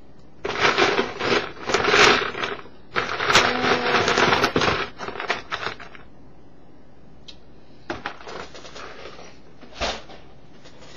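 Rummaging through a box of loose plastic Mega Bloks pieces: two stretches of dense rattling and clattering in the first five seconds, then a few separate clicks near the end.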